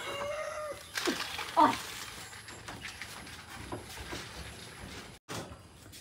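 Loose plastic packaging wrap rustling and crinkling, with scattered light clicks and handling knocks. Near the start there is a short held call, then a couple of falling calls.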